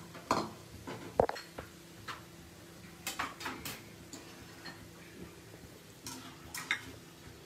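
Scattered clinks and knocks of kitchen utensils and cookware being handled at the stove, a few seconds apart, over a faint steady hum.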